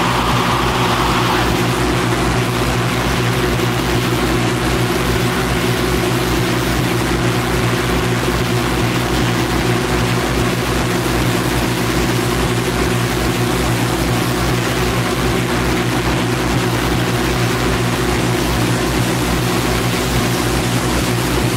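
Power electronics noise track from a cassette: a dense, steady wall of hiss over a droning hum of several held low tones, with a low pulse beating a few times a second. A brighter burst of midrange noise fades out in the first second or so.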